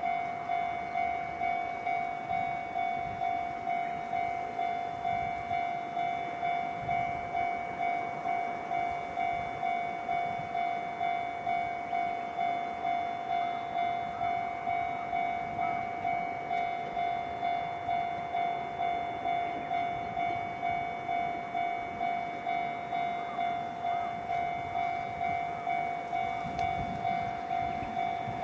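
Railway level-crossing warning bell ringing steadily at about one and a half strikes a second, with a train's running noise beneath it.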